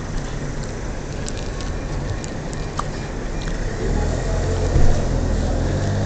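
Street traffic with a car engine running close by, the low rumble growing louder about four seconds in; a single thump just before the end.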